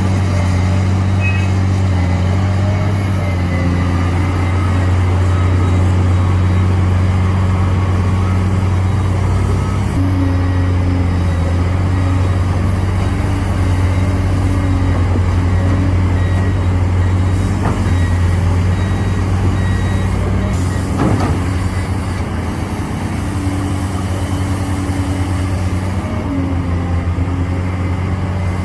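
Heavy diesel engine of a Cat 385C excavator running steadily under load, a deep continuous hum with machinery noise over it.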